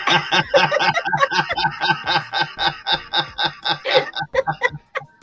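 A woman laughing in a long run of quick, rhythmic bursts that thin out into a few separate ones near the end.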